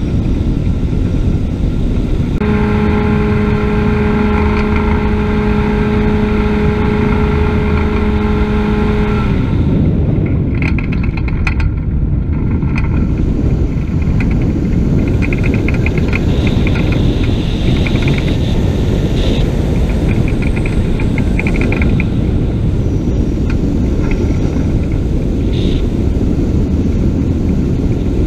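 Ultralight aircraft engine and propeller running steadily under a heavy rush of wind across the open seats during a steep banked turn. A steady hum rides on top for about seven seconds, starting a couple of seconds in.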